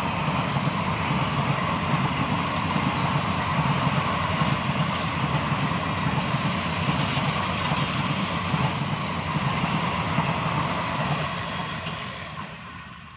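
Coaches of an express train hauled by an electric WAP-4 locomotive rushing past at speed in a steady, dense rumble that fades away over the last couple of seconds as the train moves off.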